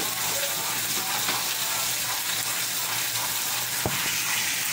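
Food sizzling steadily in a frying pan, with one sharp knock about four seconds in.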